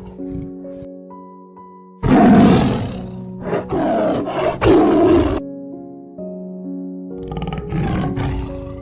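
A big cat roaring over light background music: a loud roar starts about two seconds in and breaks into several pulses, and a second, shorter roar comes near the end.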